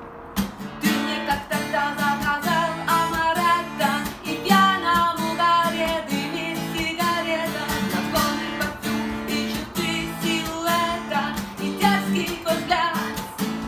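A song accompanied by acoustic guitar: strummed chords under a sung melody.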